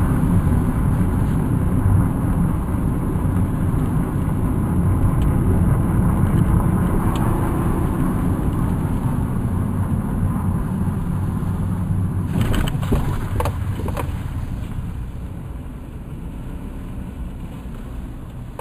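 Car cabin noise while driving: steady engine and tyre rumble from the road, growing gradually quieter over the last several seconds. A few sharp clicks about twelve seconds in.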